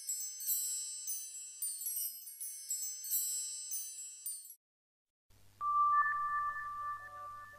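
High-pitched tinkling chimes ring in quick overlapping runs for about four and a half seconds. After a brief gap, background music begins with a long held high note.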